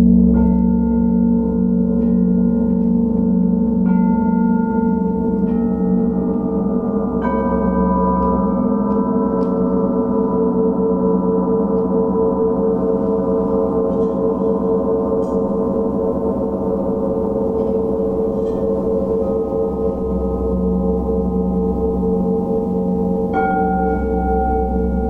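A Paiste planetary gong played with a mallet, ringing in a steady sustained wash, while crystal alchemy singing bowls are struck with a wand, each adding a new clear ringing tone on top: several in the first seven seconds and another near the end.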